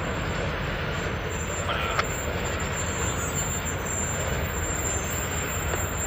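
Steady low rumble of Norfolk Southern diesel freight locomotives running as their train of covered hoppers moves slowly, with one sharp click about two seconds in.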